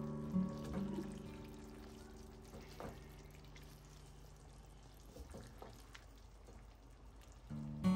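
Silicone spatula stirring chicken pieces in a thick tomato sauce in a nonstick frying pan: faint wet squelching and scraping with a few soft clicks. Acoustic guitar music fades out at the start and comes back near the end.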